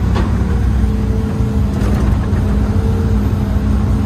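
Old Hitachi hydraulic excavator's diesel engine running steadily under the operator's seat as the arm and bucket work, heard from inside the cab, with a fainter higher hum that comes and goes and a few light clicks.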